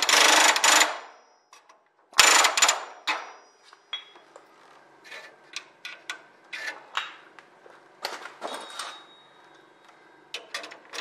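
Clecos being worked into a small metal bracket, making a run of small metallic clicks and snaps. Before them come two loud, noisy bursts about a second long, one at the start and one about two seconds in.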